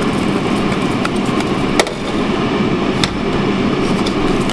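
Parboiled potato chunks tumbling and knocking around inside a stainless steel saucepan as it is swirled to rough up their surfaces: a steady rumble with sharper knocks about once a second.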